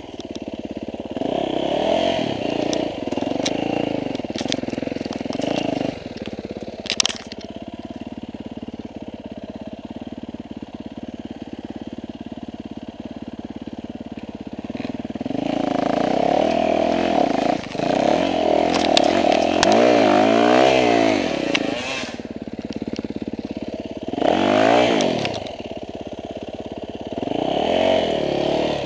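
Dirt bike engine revving in bursts, pitch rising and falling: lower and steadier for several seconds, then revved hard through the middle and again twice near the end. A sharp knock about seven seconds in.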